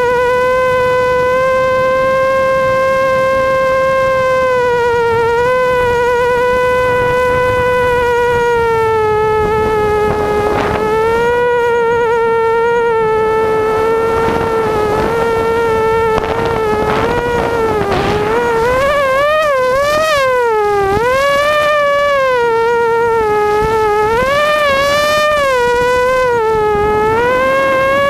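ImmersionRC Vortex FPV racing quadcopter's motors and propellers whining loudly. The pitch holds fairly steady at first, then rises and falls repeatedly in the second half as the throttle changes.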